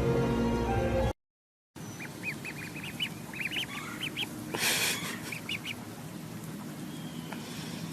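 Background music cuts off about a second in. After a short gap, a small animal gives a run of short, high chirps in quick clusters, with a brief rustle about four and a half seconds in.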